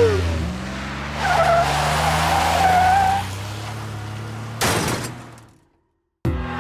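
Cartoon monster truck sound effect: an engine running steadily as the truck drives off, with a tyre squeal from about one to three seconds in. A short burst of noise follows near the five-second mark, then the sound fades out to silence about a second before the end.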